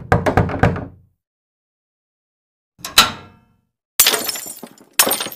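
Sound effects on an animated logo intro. First comes a quick run of sharp clicks and knocks that dies away within a second, then a single hit about three seconds in. A longer crackling burst starts at four seconds, and another sharp hit comes near the end.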